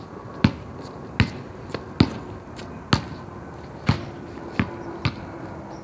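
A basketball being dribbled on a hard court: about seven bounces, roughly one a second, not quite even.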